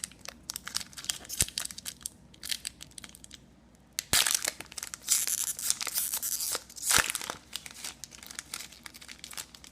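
Foil wrapper of a hockey trading-card pack being torn open and crinkled. Light clicks and rustles of cards being handled come first, then a loud run of crackling from about four to seven seconds in.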